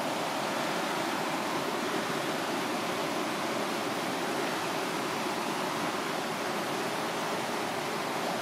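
Rapids of the Falls of Dochart: river water rushing over rocks in a steady, unbroken roar.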